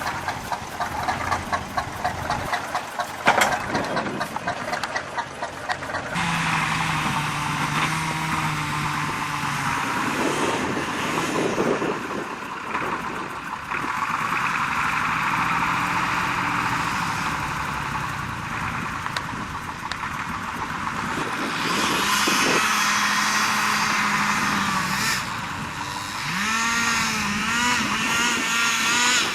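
Engines running and revving, their pitch rising and falling, with an abrupt change in the sound about six seconds in; a fast, even ticking runs before that change.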